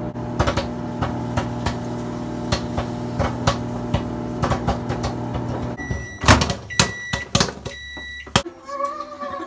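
Steady electrical hum, such as a running appliance makes, with irregular clicks and knocks over it. A few short high beeps and louder knocks come about six seconds in, and the hum cuts off suddenly about a second before the end.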